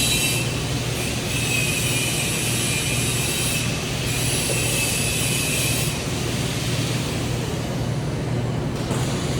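TIG welding arc hissing in stretches, with short breaks about half a second in and near four seconds, dying away about six seconds in, over a steady low hum.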